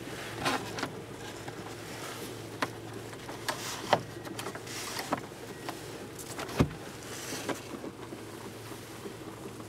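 Scattered clicks and knocks of a car's plastic interior trim being handled: a sun visor and its vanity mirror cover flipped, a roof grab handle pulled down, with a low thump a little past halfway. Under it, the steady low hum of the idling engine heard from inside the cabin.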